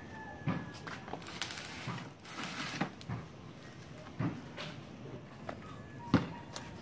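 Irregular knocks, bumps and rustling as a heavy cement planter holding a snake plant is handled, lifted and carried, with a louder knock near the end.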